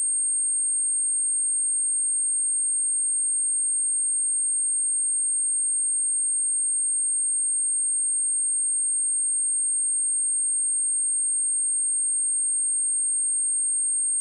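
A single steady 8575 Hz sine-wave test tone: one high, pure pitch held at a constant level.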